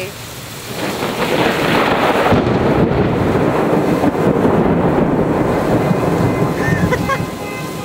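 Thunderstorm: a loud, steady rush of rain and wind that swells in about a second in and eases near the end.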